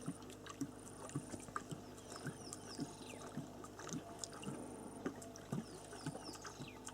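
Faint outdoor ambience: small high chirps, a high thin trill that comes and goes in spells of about a second, and scattered light clicks over a low steady hum.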